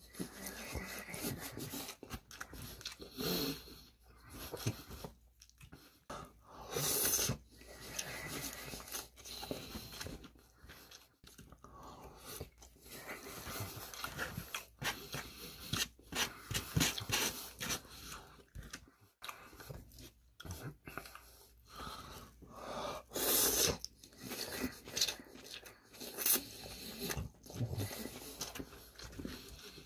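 A person eating, chewing rice vermicelli noodles and crunchy shredded cabbage in uneven bursts, with now and then a slurp as noodles are sucked in from chopsticks.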